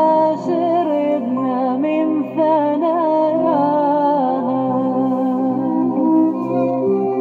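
Background music: a slow Arabic song, a wavering melody with vibrato over a held low drone.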